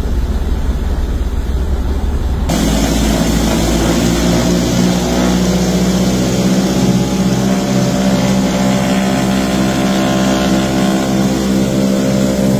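Radial engines and propellers of a 1929 Ford Tri-Motor running, heard from inside the passenger cabin: a low rumble for the first two and a half seconds, then an abrupt cut to the full, steady engine drone, which swells slightly.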